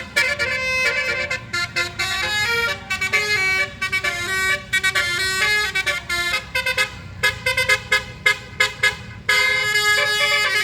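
A bus's basuri musical horn playing a quick melody of short notes, over a low engine rumble. The tune breaks off about nine seconds in and a new phrase starts.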